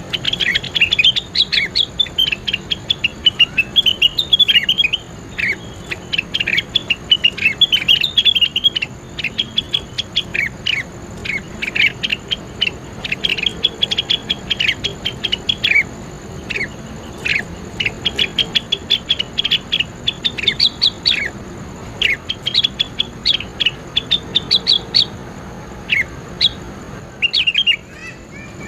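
A songbird singing a fast chattering song of short, sharp, high chips and quick trills in dense runs with brief pauses. It is played as a masteran recording, a song model for training competition cage birds. The song breaks off near the end.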